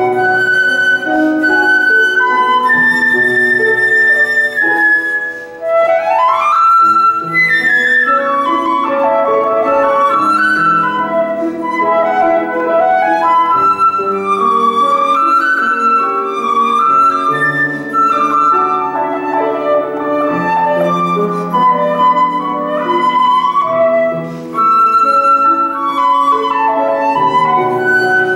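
Concert flute playing a slow, lyrical melody over grand piano accompaniment, with a quick rising run about six seconds in.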